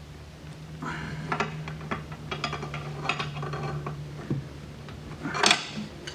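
Metal wrenches clicking and clinking in short, irregular bursts as the fuel cell's pickup hose fitting is tightened, with a louder clatter near the end.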